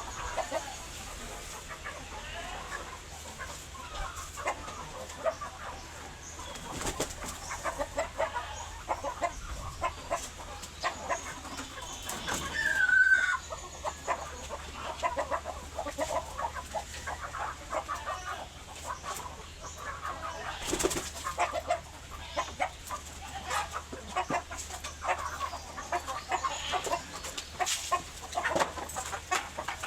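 Chickens clucking in a flock, with many short scattered calls and wings flapping now and then. A brief louder sound stands out about halfway through.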